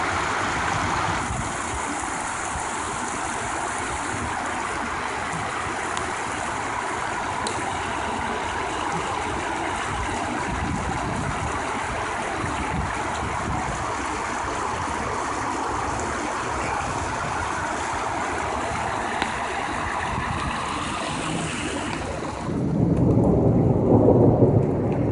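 Storm water rushing and splashing over a tied concrete block erosion mat in a steady, even rush. About three seconds before the end, the rush gives way to a louder, low rumble.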